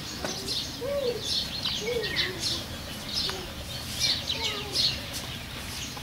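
Small birds, likely house sparrows, chirping busily and overlapping. A few lower, arching calls come in between.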